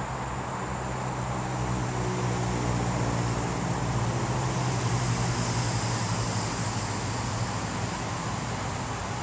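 A motor vehicle's engine hum swells and fades, loudest about halfway through, over a steady high insect buzz.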